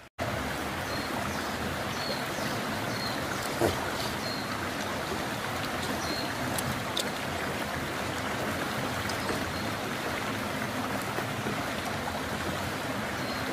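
River water running over rocks: a steady rushing, with a few faint clicks, the sharpest about three and a half seconds in.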